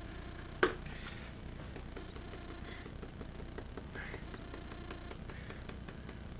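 One sharp click about half a second in, then a run of light, rapid ticks as something is shaken out of a small container over a glass baking dish, over a steady low hum.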